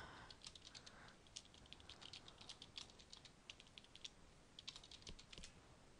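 Faint typing on a computer keyboard: a quick run of key clicks, a short pause about four seconds in, then a few more clicks.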